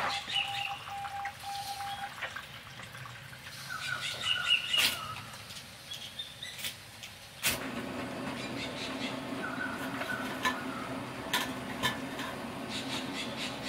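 Bush ambience in the rain: short bird calls and a pulsed calling tone in the first two seconds, over scattered ticks and taps. About halfway through a steady low hum comes in suddenly and runs on.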